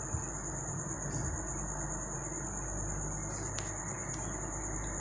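An insect trilling steadily at a high, even pitch over a low, even background hiss, with a few faint clicks.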